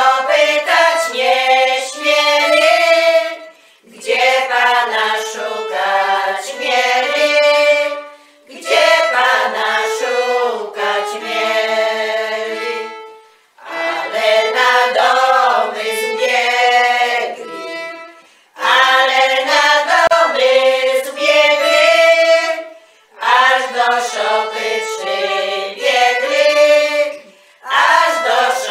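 A women's folk choir singing a Christmas carol (kolęda) with violin accompaniment. The melody comes in phrases of about four to five seconds, each broken off by a short pause for breath.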